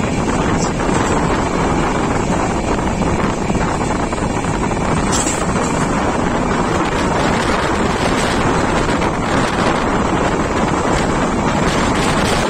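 Wind rushing at the window of a moving express passenger train and buffeting the microphone, over the steady running noise of the train on the track.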